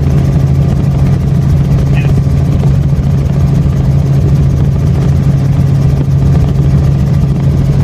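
Helicopter rotor and engine running with a loud, steady drone in flight.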